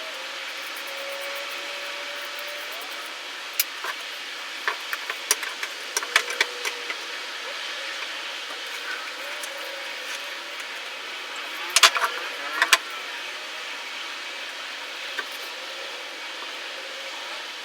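Scattered light clicks and knocks of things being handled and set down over a steady background hiss, with a cluster of them about four to seven seconds in and another about twelve seconds in.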